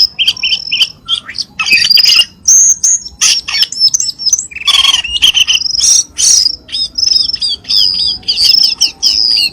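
Cucak keling song played as a lure call: a fast, unbroken run of high chirps and short whistled notes, with a string of quick down-slurred notes near the end.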